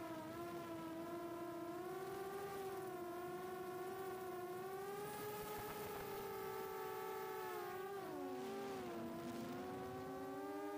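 Brushless motors of a 4-inch FPV quadcopter (HGLRC 1303.5 4500kv) whining in flight, the pitch drifting slowly with throttle. About eight seconds in, the whine dips lower and briefly splits into two close tones as the motors slow unevenly, then rises and steadies again.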